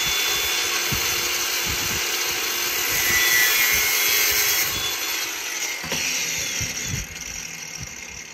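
Cordless angle grinder cutting through a small metal latch rod to length, a steady high whine over the cutting noise. About six seconds in it is switched off and spins down, followed by a few light knocks.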